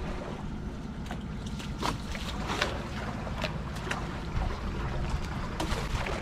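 A boat's engine running steadily at low speed, with wind on the microphone. A few short knocks or splashes sound along the way.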